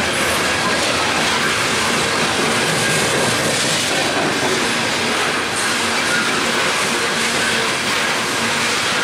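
Loaded coal hopper cars of a long freight train rolling past at steady speed: a constant heavy rumble with wheels clattering over the rail joints, and faint wheel-squeal tones now and then.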